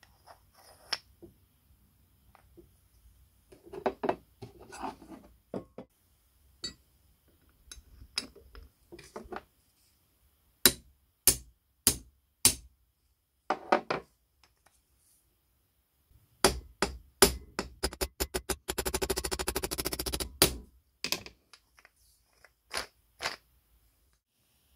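Steel hammer striking the pin of a wooden crank handle on an anvil, riveting the handle to the meat grinder's cast-iron crank arm: a few single blows, then a fast run of light taps, then a few more blows. Before that come softer knocks of the metal parts being handled.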